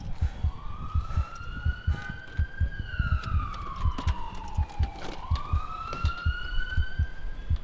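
Emergency vehicle siren wailing, its pitch slowly rising and falling over a fast pulse of low thuds, about four a second. Both stop abruptly near the end.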